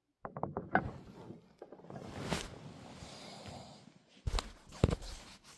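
Rustling and handling noise close to the microphone, with a few sharp clicks at the start and louder knocks about four and a half and five seconds in.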